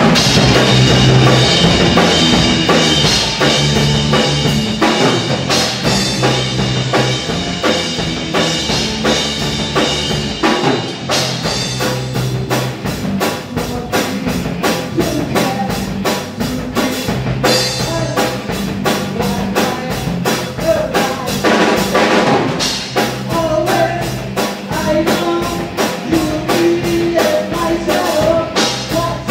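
Live rock band playing: electric guitar, electric bass and a drum kit keeping a steady, even beat, with a male singer's voice over the band.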